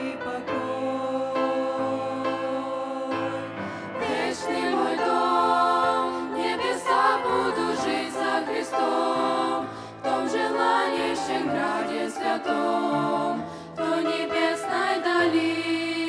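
Teenage girls' vocal group singing a Slavic Christian song together in harmony through handheld microphones, with short breaks between phrases.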